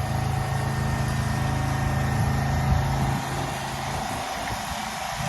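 An engine running steadily with a low hum; the hum drops away about three seconds in.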